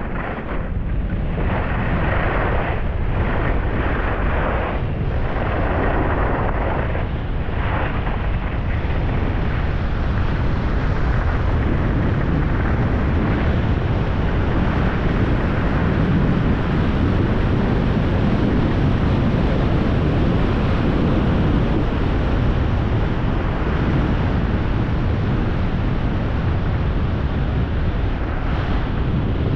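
Wind rushing over the microphone and the hiss of sliding over groomed snow during a downhill run, a loud steady rush that starts suddenly at the beginning. There are a few sharper scrapes in the first several seconds.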